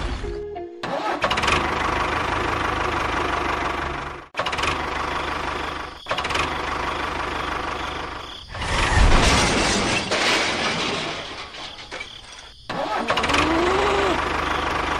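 A vehicle engine running steadily, in several short stretches separated by abrupt cuts, with the sound changing at each cut.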